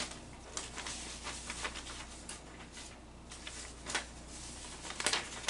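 Faint scattered rustles and light ticks of pen and paper being handled while a score is written.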